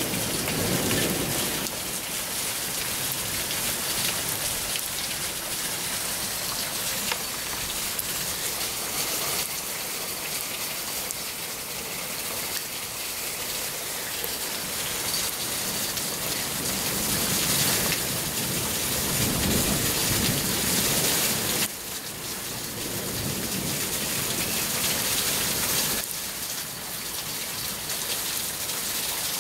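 Hail and rain falling hard: a dense, steady patter of hailstones and drops striking the ground, leaves and hard surfaces.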